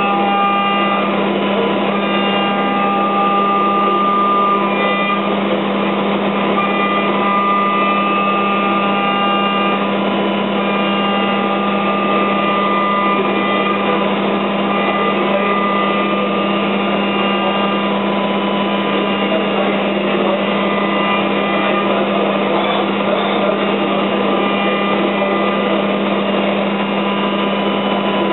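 GROB G350 five-axis CNC machining centre running a simultaneous milling cycle. A steady hum and a hiss of cutting noise run throughout, under several high whining tones that break off and come back every few seconds as the cut goes on.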